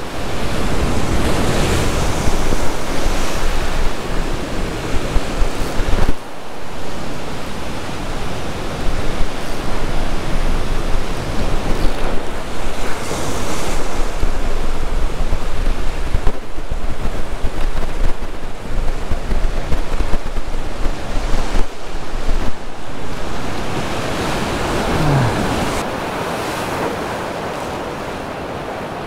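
Ocean surf breaking and washing over a rock ledge, with wind buffeting the microphone; it gets quieter near the end.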